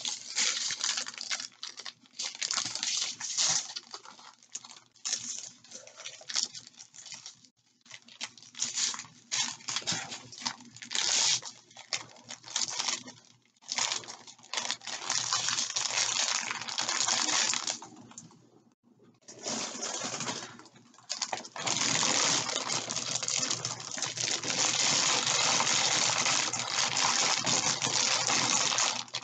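Small plastic bags of resin diamond-painting drills rattling and crinkling as they are handled, in irregular bursts, then a steady run of rattling over the last seven seconds or so.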